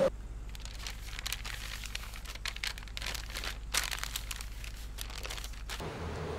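Aluminium foil crinkling and crackling as it is handled around a piece of raw meat, in irregular spells that are busiest in the middle, over a low steady hum; it stops abruptly near the end.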